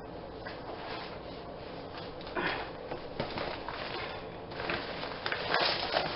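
Rustling and handling of a green reusable shopping bag as it is set on a table and reached into, in several bursts starting a couple of seconds in.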